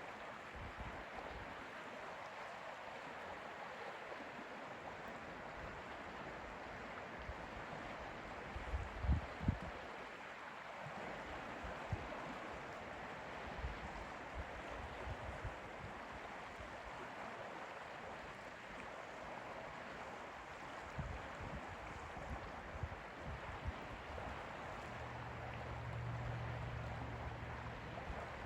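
Steady, gentle water sound at a lake's edge, with a few brief low thumps about a third of the way in. A faint low hum comes in near the end.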